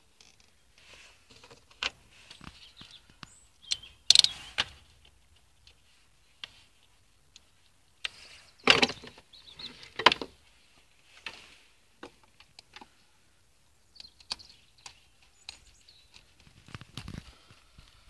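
Hands refitting a pencil ignition coil and the plastic engine cover on a Renault Clio Mk 3: irregular plastic clicks and knocks, loudest about four seconds in and again around nine to ten seconds.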